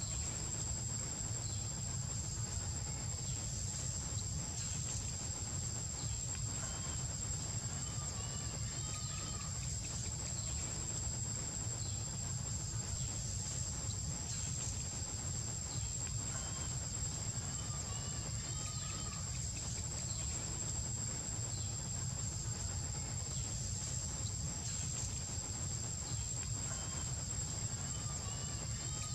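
Steady high-pitched insect drone, like cicadas or crickets, over a constant low rumble, with faint short chirping calls now and then.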